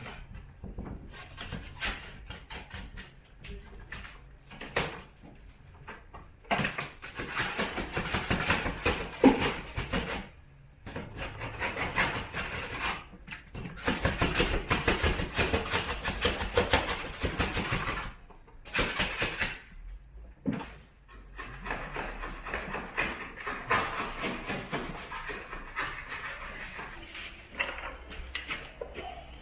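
Hand scraping and rubbing at a wall in irregular stretches, with scattered clicks and knocks: a drywall knife and wet sponge working old cornice adhesive off the plasterboard. The loudest sound is a sharp knock about nine seconds in.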